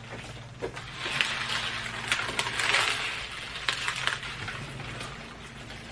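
Onion stalks and papery skins rustling and crackling as they are handled and pushed through a wire panel, with several sharp clicks along the way. A steady low hum runs underneath.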